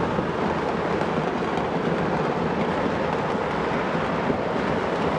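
Countless fireworks and firecrackers going off across a city at once, merging into one continuous crackling rumble.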